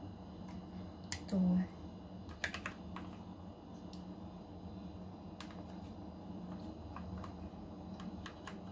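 Plastic spoon tapping and scraping in a plastic cup of mango gelatin, giving scattered light clicks, over a steady low hum. About a second and a half in comes a brief pitched hum, the loudest sound.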